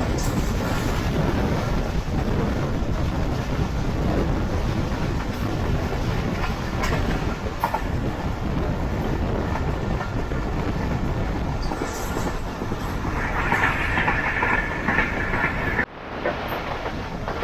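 Passenger train running, heard from on board: a steady rumble of wheels on rail with scattered clicks from the track. Near the end a higher-pitched squeal joins in for a couple of seconds, then the sound drops suddenly and resumes more quietly.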